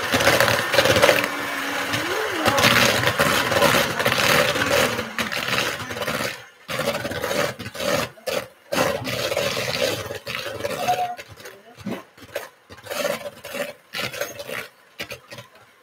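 Electric mixer running with a steady hum, beating gingerbread dough. From about halfway the sound breaks up with short gaps.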